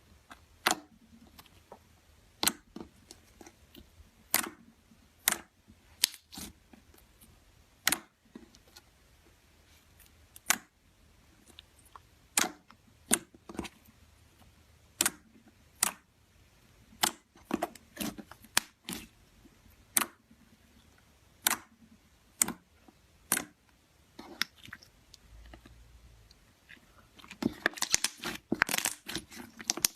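Clear slime being pressed and poked, giving sharp, separate pops and clicks about once a second as air pockets burst. Near the end it turns into a dense run of rapid crackling.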